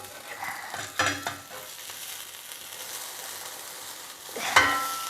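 Banana-and-egg pancake batter sizzling steadily in a buttered frying pan. A utensil knocks sharply on the cookware about a second in, and again more loudly near the end, ringing briefly.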